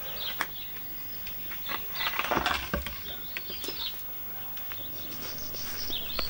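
Small birds chirping, with scattered clicks and a louder crackling, rustling burst about two seconds in as a peony clump's roots and soil are pulled out of the ground by hand.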